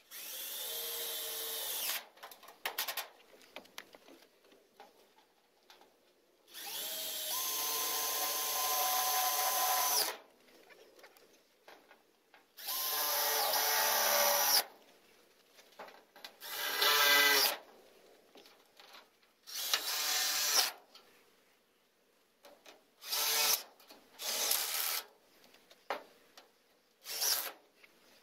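Cordless drill driving screws through a sheet-metal panel into a wooden frame, in about eight separate runs with short pauses between. The early runs last two to three seconds each and the later ones are shorter.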